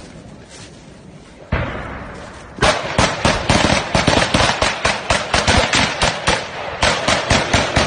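Rapid, close gunfire: strings of shots at about five a second, starting about two and a half seconds in, with a brief pause near the end before another burst.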